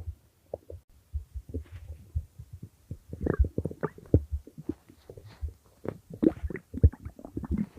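Human stomach growling and gurgling: irregular runs of short squelching pops and bubbling rumbles. Sparse for the first second or so, then busier from about three seconds in.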